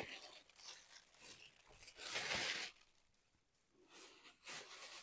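Grey polythene mailing bag crinkling and rustling as a cardboard box is pulled out of it, in scattered rustles with one louder burst about two seconds in.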